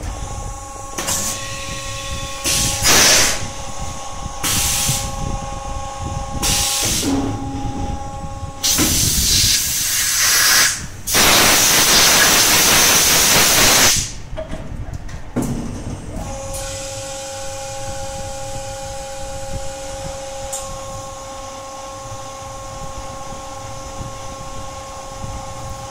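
Compressed air hissing on a cold-box core shooting machine: four short bursts, then two long loud blasts of several seconds around the middle, where an air blow gun is held to the core box plate. A steady machine hum with a few level tones runs under it.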